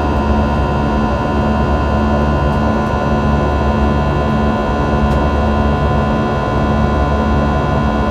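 Airbus A320 jet engines running steadily during the climb, heard from inside the cabin: a loud, even rumble and hiss with several steady whining tones and a low hum that pulses gently.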